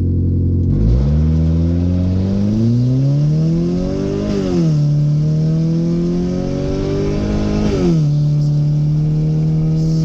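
Car engine accelerating hard from a launch, its pitch climbing steadily, then dropping sharply at two upshifts about four and eight seconds in before settling into a steady pull. This is a hard-acceleration test of a misfire repair on the cylinder 3 coil connection.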